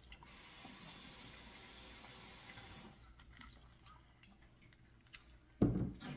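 Hot sauce spraying from a bottle onto a fried chicken drumstick: a steady hiss for almost three seconds, then a few faint spatters. A short, louder thump near the end.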